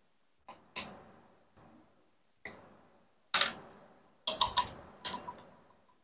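Small precision screwdriver turning a screw out of a hair dryer's plastic housing, with scattered light clicks and ticks. They come at an uneven pace, with a cluster of louder clicks a little after four seconds in.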